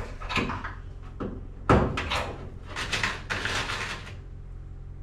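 Thin aluminum seat-floor panel being handled and set into place on the seat ribs: a series of knocks and rattles of sheet metal, the loudest about two seconds in, settling after about four seconds to a faint steady hum.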